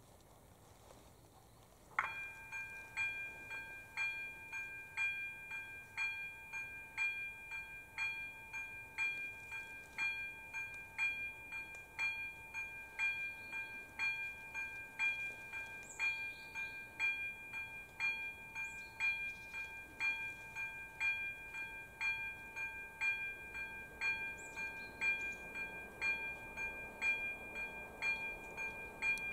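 Electronic level-crossing warning bell (AŽD ZV-02 e-bell) starting suddenly about two seconds in and ringing steadily, about two dings a second. It is the crossing's warning that a train is approaching.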